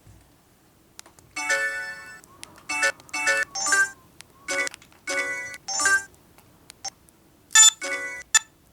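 Samsung D900i (SGH-D900) mobile phone playing a polyphonic ringtone through its speaker: a melody of short electronic notes that starts about a second and a half in. It pauses briefly and gives a few more notes near the end.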